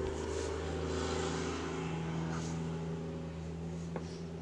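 A steady low mechanical hum made of several steady tones, fading slightly near the end.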